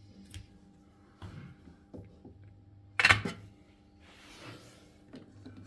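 Clicks and knocks of tools and parts being handled on a workbench, with one louder knock about three seconds in and a short rustle after it, over a faint low steady hum.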